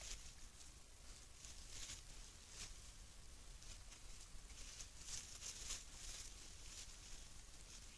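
Wild boars rooting and feeding in dry leaf litter: faint, irregular rustling and crunching, busiest about five to six seconds in, over a steady low hum.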